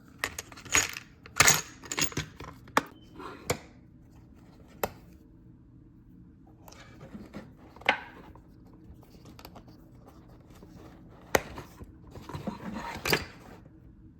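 Small metal leatherworking tools being handled, giving scattered sharp metallic clicks and light knocks. They come in a quick run over the first few seconds, with more clusters around the middle and near the end.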